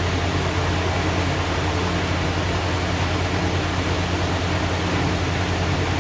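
Steady low hum with an even hiss over it, unchanging, with no distinct knocks or clicks.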